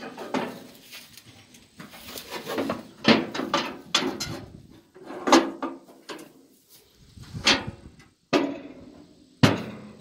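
Metal tipping-table calf squeeze clanking and banging as a calf is caught in it and tipped, a string of sharp knocks with short ringing, the loudest about a third of the way in and near the end.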